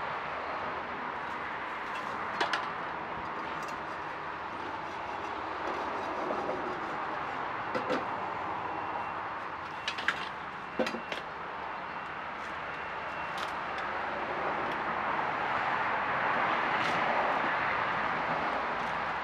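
Steady background noise with a few short, sharp knocks and clicks scattered through it, two of them close together near the middle.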